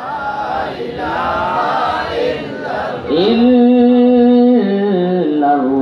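Men's voices chanting devotional zikr together. About three seconds in, a single man's voice takes over and holds one long sung note, stepping down in pitch near the end.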